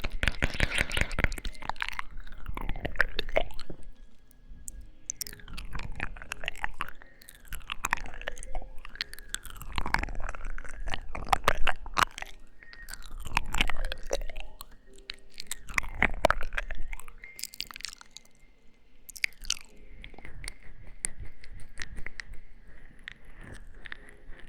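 ASMR mouth sounds close to the microphone: wet lip smacks and kissing noises, coming in clusters every two to three seconds and quieter near the end.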